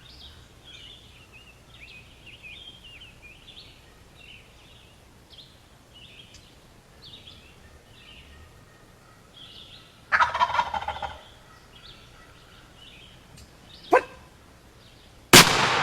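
Wild turkey gobbler gobbling once, loudly, about ten seconds in, over faint songbird chirping. A short sharp sound follows, then near the end a single loud shot, likely a shotgun, that dies away with an echo.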